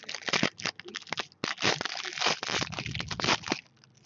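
Foil wrapper of a trading-card pack being torn open and crinkled by hand. It is a dense run of crinkling that stops about three and a half seconds in.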